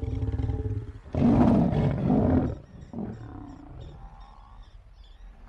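Lions growling: a low pitched growl, then a loud harsh snarl from about a second in, lasting about a second and a half, and a short grunt near three seconds.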